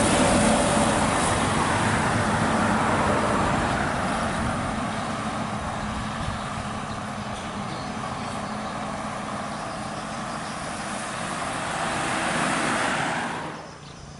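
An intercity bus passing on the road: engine and tyre rush loud at first, then fading as it moves away. Road noise swells again near the end and cuts off abruptly.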